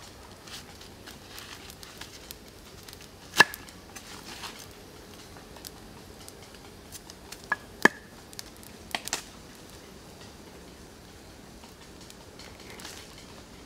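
A knife blade working an ear of white corn against a wooden stump: a few sharp knocks and clicks, the loudest about three and a half and eight seconds in, with fainter short scrapes between.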